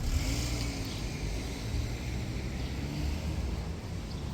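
A motor vehicle running close by: a steady low engine rumble with a hiss over it.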